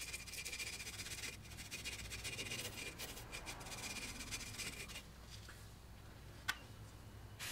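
Hand wire brush scrubbing rust and corrosion off a steel drum-brake backing plate at the wheel cylinder mounting surface, in quick rasping strokes. The scrubbing stops about five seconds in, and a single click follows near the end.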